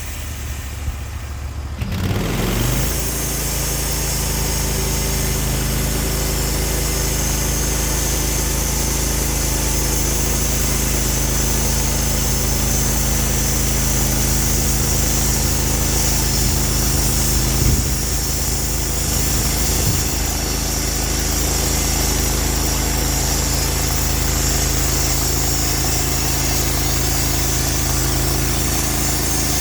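Sawmill's gas engine speeding up about two seconds in, then running steadily under load with a steady high hiss, as when a log is being sawn into 2x4s.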